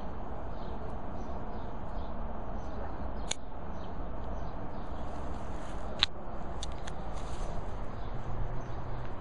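Outdoor background noise: a steady low rumble, broken by a few sharp clicks, the loudest about six seconds in.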